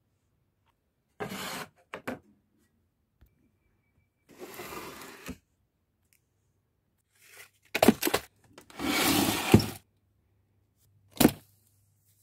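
Plastic bottles and craft packaging handled right at the phone's microphone: short bursts of rubbing and scraping with a few sharp knocks, with pauses between them. The longest and loudest stretch comes about nine seconds in.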